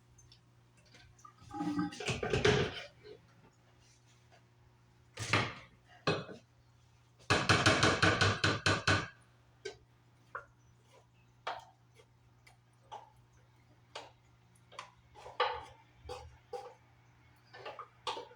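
Kitchen utensils clinking and knocking against dishes, with scattered single clicks and a run of rapid repeated clattering strokes about halfway through.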